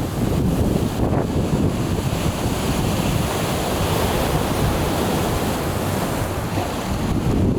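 Sea surf washing steadily against the shore, with wind blowing on the microphone and adding a low rumble.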